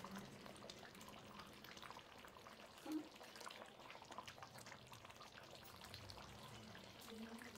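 Faint wet clicking and bubbling of thick brinjal kulambu gravy simmering and being stirred with a metal ladle, with one brief louder sound about three seconds in.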